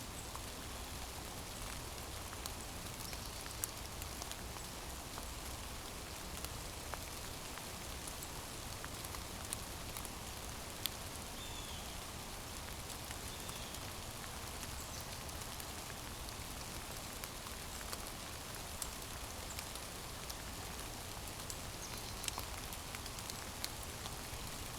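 Steady hiss of light rain, with scattered drips ticking now and then.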